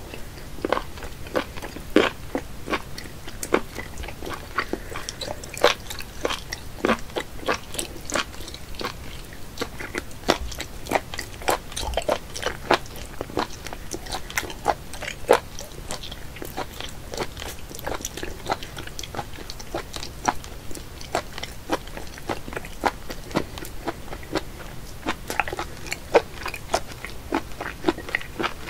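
Close-up chewing of raw octopus tentacles: a dense, irregular run of sharp mouth clicks and smacks as the rubbery flesh is bitten and chewed.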